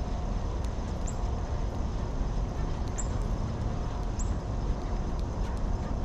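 Steady wind noise rumbling on the microphone, with three short high chirps about one, three and four seconds in.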